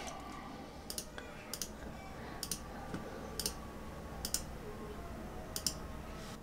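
Computer mouse clicking about seven times at irregular intervals, each click a quick doubled click of press and release, as points of a drawn mask are placed one by one with a pen tool. A faint low hum lies underneath.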